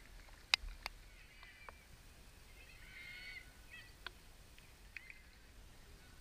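Faint open-air football pitch sound: two sharp knocks about half a second in, the loudest sounds, then a few distant high shouts from players, the clearest about three seconds in.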